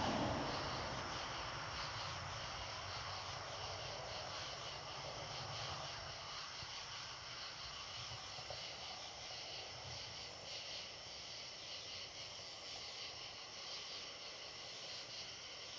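Night insect chorus: a steady, high, pulsing trill of crickets and similar insects. A low rumble fades away over the first few seconds.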